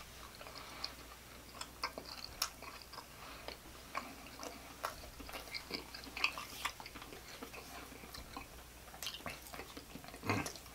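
Close-miked chewing of sausage: soft wet mouth clicks and smacks at an irregular pace, with a few louder smacks now and then.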